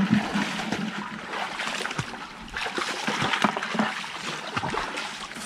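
Shallow water splashing and trickling as feet wade through mangrove mud, with scattered small knocks and clicks.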